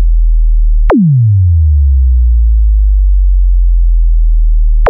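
Loud electronic sub-bass test tone, deep and steady. About a second in, a falling sweep dives from a high zap down into the bass, and the low tone then holds; another dive starts at the very end. It is the bass section of a sound-system test, played to show off the subwoofers.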